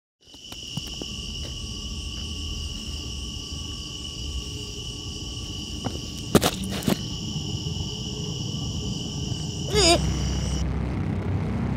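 A steady, high-pitched chorus of night insects over a low rumble. A little past the middle there are two sharp clicks, and near the end a quick falling squeal, after which the insect chorus cuts off suddenly.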